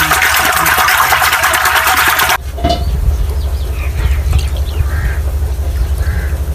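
Buttermilk glugging as it is poured from a clay pot into a clay bowl, over a strong low rumble. Before that, a dense crackling noise cuts off abruptly about two seconds in.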